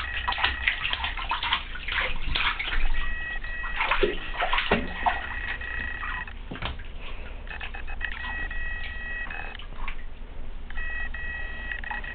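Bathwater splashing and slapping as a baby in a bath seat bats at the water with its hands. A steady high-pitched tone sounds three times, for a few seconds each.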